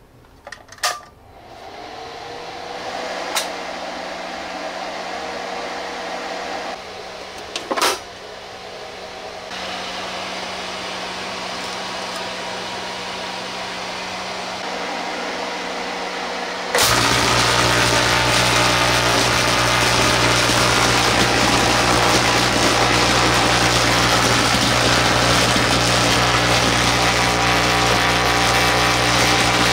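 A few switch clicks, then a steady electrical hum as power is brought up through a variac. About seventeen seconds in, a vacuum tube pseudo-Tesla coil fires and its fiery arcs give a loud, steady buzz.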